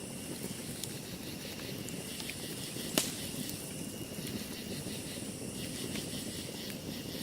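Wood campfire burning: a steady low rush with scattered small crackles and one sharp loud pop about three seconds in.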